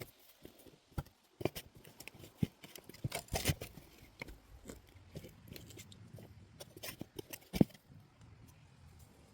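Hands and tools working through soil and weeds in a potato bed, making irregular rustling, scraping and small clicks as potatoes are dug out, with one sharp knock about seven and a half seconds in.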